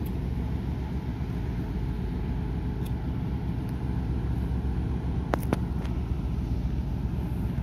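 Low, steady rumble of a large container ship passing close by on the water.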